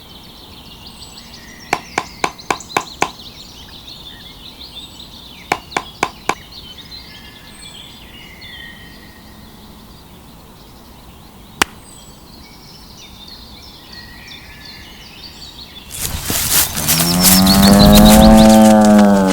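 A cow moos once, loud and long, starting about three seconds before the end; its pitch rises and then falls. Earlier come quick runs of sharp knocks, one run of about six and another of four, with a faint chirping behind them.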